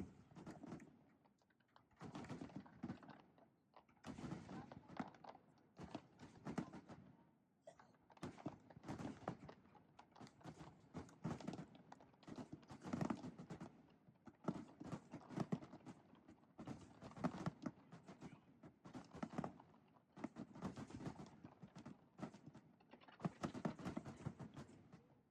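Fireworks heard faintly: uneven clusters of pops and crackles every second or two, with short lulls between.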